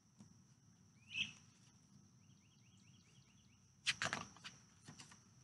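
Pages of a paperback picture book being opened and turned, a papery rustle just before four seconds in and a few softer handling noises after it. A bird gives a short rising call about a second in, followed by a quick run of short chirps.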